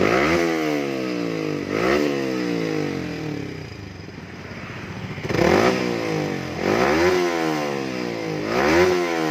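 Yamaha R15's single-cylinder engine revved in about five quick throttle blips through a stainless racing exhaust with a dB killer baffle fitted, each rev rising sharply and falling back toward idle. With the dB killer in, the note is not too raspy.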